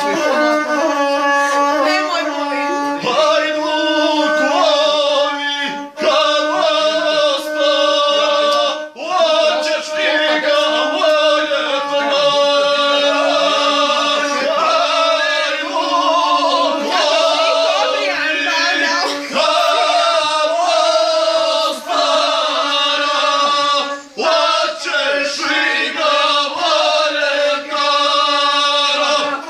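A man singing in a chanting style to the accompaniment of a gusle, the single-string bowed Balkan fiddle, which holds a steady note beneath the voice.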